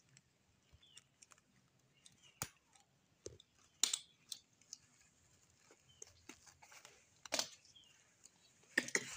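Disposable diaper being fastened on a baby monkey: faint rustling of the diaper's plastic backing and tape tabs, broken by a few sharp crackles, the loudest about two and a half, four and seven seconds in. A few faint short high chirps sound between them.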